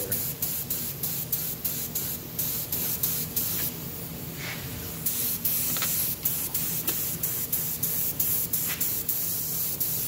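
Air-powered spray gun hissing as it sprays clear coat onto an alloy wheel's rim, in quick repeated pulses. This is the final burn-in coat of clear, laid on to melt the new clear into the old clear at the repair.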